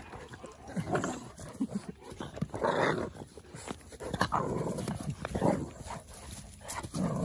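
Great Dane puppy and a small dog play-fighting, with short irregular dog growls and grumbles.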